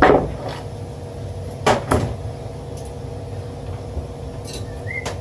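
A loud knock at the start, then two more knocks close together about two seconds in: parts and panels being handled during blower removal. A steady low hum sits under the knocks.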